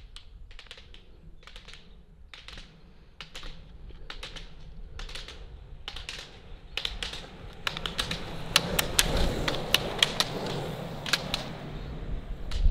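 Ski-pole tips clicking on asphalt as a group of roller skiers double-poles past, with the rolling rumble of roller-ski wheels on the road. The clicks come about once or twice a second, then grow louder and more frequent, with the rumble rising, from about seven seconds in as the group draws near.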